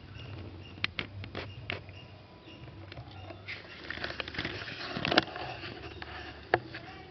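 A cat batting and tossing a dead rat about on concrete: a few light taps about a second in, a burst of scuffling from about three and a half seconds that ends in a loud knock, and one more sharp tap near the end.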